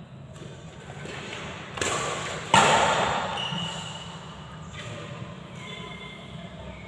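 A badminton racket strikes a shuttlecock once, a sharp hit about two and a half seconds in that rings on in the hall's echo.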